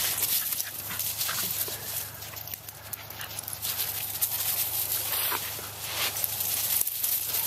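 Dogs playing together: a few short dog vocal sounds among continual scuffling and rustling from their movement.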